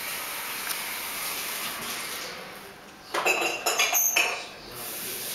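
A steady background hiss, then about three seconds in a quick flurry of ringing clinks and clatters, like hard objects knocking together, lasting about a second and a half.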